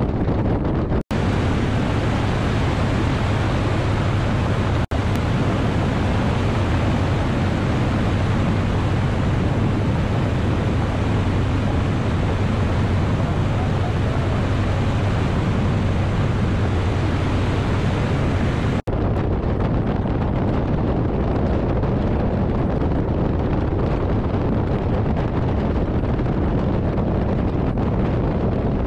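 Biplane's radial engine running steadily in flight, under a heavy rush of wind buffeting the microphone. The sound cuts out for an instant about a second in, about five seconds in, and about two-thirds of the way through.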